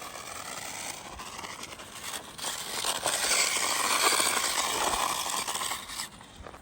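Small electric RC truck built on a 1/24-scale SCX24 chassis driving over gravel and dirt: a motor whine that rises and falls in pitch over the crunch and scrape of the tyres, growing louder toward the middle and fading near the end.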